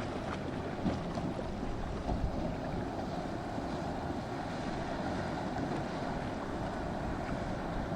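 Boat engines running, mixed with wind on the microphone and the wash of waves.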